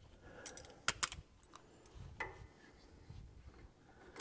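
Light clicks and taps of metal brake-shoe hardware being handled and fitted by hand, with two sharp clicks close together about a second in.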